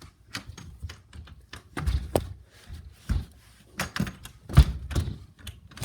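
A door being opened and handled: a string of thumps and knocks, the loudest about four and a half seconds in.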